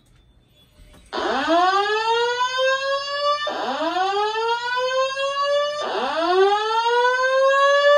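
Simplex 4100ES voice evacuation system sounding its whoop alert tone through a speaker: rising sweeps, three of them about two and a half seconds apart, starting about a second in. This is the evacuation alert tone that alternates with the recorded 'Attention, an emergency has been reported' message.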